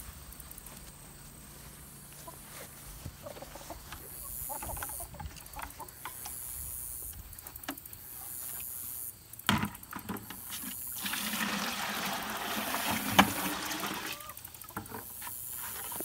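Water poured from a plastic five-gallon bucket into a hanging plastic bucket that feeds a poultry bell waterer: a knock of the bucket being handled, then a steady splashing pour lasting about three seconds in the latter part.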